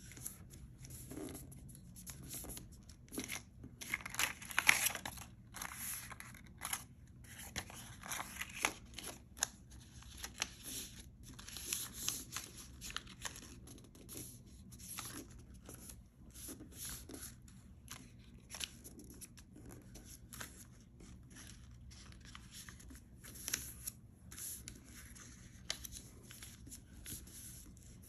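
Sheets of paper rustling and crinkling as they are folded, creased flat and slid about on a wooden tabletop by hand, in short irregular bursts. The loudest flurry comes about four to five seconds in.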